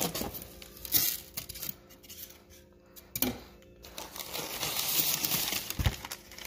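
A shipping box being unpacked by hand: a few scrapes and knocks as its styrofoam liner is opened, then a longer stretch of crinkling and rustling of packing material from about four seconds in.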